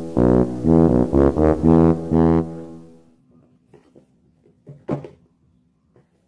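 A short edited-in musical sound effect: a quick run of several loud notes lasting about two and a half seconds, then fading. Afterwards faint clicks of the cardboard box being handled, with one sharper tap about five seconds in.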